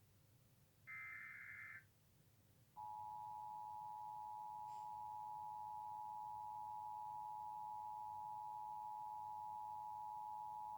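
Emergency Alert System broadcast tones: a shrill SAME digital header data burst about a second in, lasting about a second, then the steady two-tone EAS attention signal held for about eight seconds before it stops. They mark the start of an alert, here a required monthly test.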